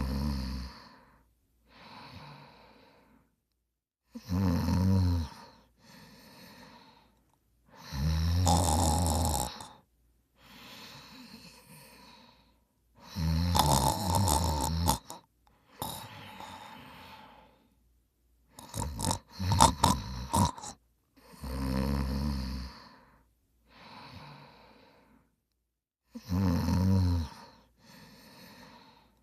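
A person snoring: loud snores every four to five seconds, each followed by a softer breath. One snore about two-thirds of the way through comes out broken and sputtering.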